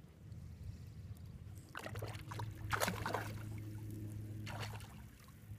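A hooked trout thrashing at the lake surface as it is played in, with splashes in the middle of the clip and another a little later. A steady low hum sits underneath.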